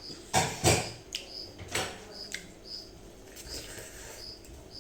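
Close-up eating noises: a few loud, sharp mouth and chewing sounds in the first two seconds, then softer ones. A short high chirp, from a bird or insect, repeats about twice a second behind them.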